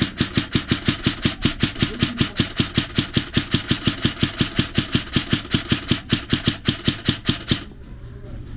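Airsoft gun firing a long, steady full-auto string at about six to seven shots a second, cutting off about seven and a half seconds in.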